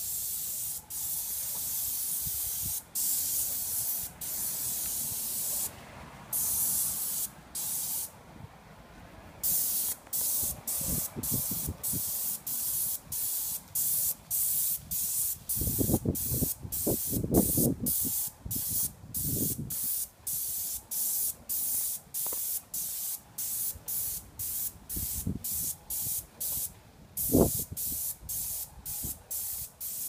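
Graco 695 airless paint sprayer gun spraying sealer primer: a loud hiss cut into short bursts as the trigger is pulled and released. There is a pause about eight seconds in, and then about two bursts a second. Low rumbling bursts come in the middle and once near the end.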